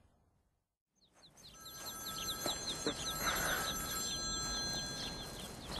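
After about a second of silence at a scene change, a telephone starts ringing: a steady electronic ring with a rapid warbling trill, growing louder over the first couple of seconds.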